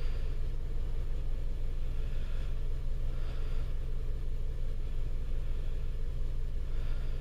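A car engine idling steadily, heard as a low, even rumble from inside the car.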